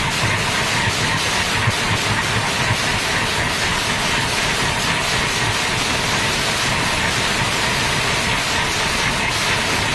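Many large brass hand cymbals clashed together by a group of players, making a loud, continuous shimmering wash, with drums beating underneath.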